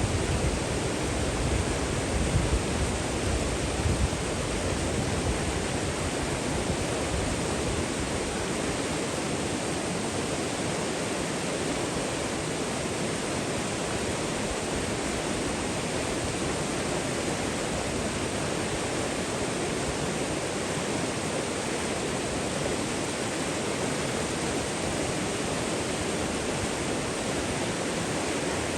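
Water rushing steadily, a continuous even hiss like a waterfall or fast stream, with some uneven low rumble in the first few seconds.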